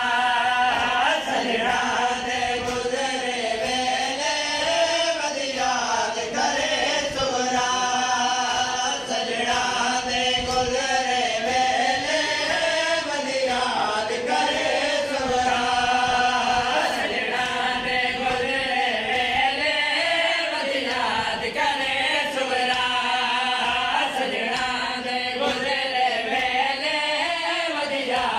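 A group of men chanting a noha, a Shia Muharram lament, together into a microphone and over loudspeakers. The melody is drawn out and slides slowly up and down, with no breaks.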